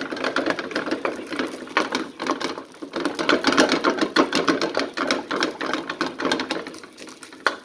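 A cooking utensil rapidly tapping and scraping against a frying pan, chopping apart clumps of rice that are frying in oil.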